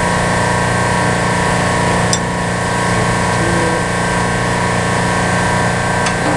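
Chiller running loud, a steady machine drone with several held tones over it. One sharp click about two seconds in.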